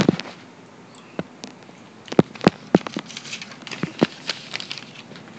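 A dozen or so sharp taps and clicks at irregular spacing, with a faint background hiss between them.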